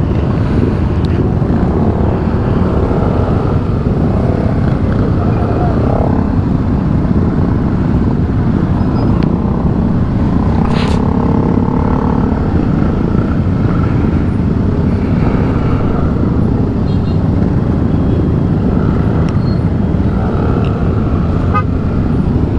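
Several motorcycle engines running at low revs in a tightly packed group, a steady low rumble, with one short sharp click about halfway through.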